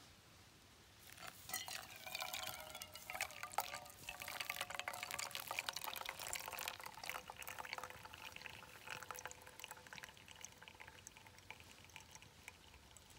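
Water poured from a pot onto ground coffee in a mesh pour-over filter, splashing and trickling through into a titanium mug. It starts about a second in and tapers off over the last few seconds.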